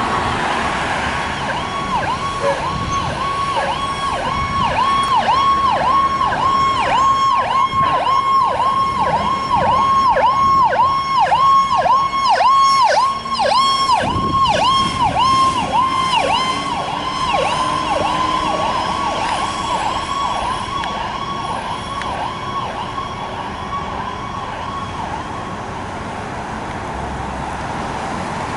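Ambulance siren on a fast yelp, its pitch dipping and returning about twice a second, growing louder as the ambulance approaches, loudest around the middle, then fading away as it drives off. Steady road traffic runs underneath.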